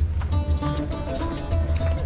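Background music: a melody of held notes over a deep, steady bass.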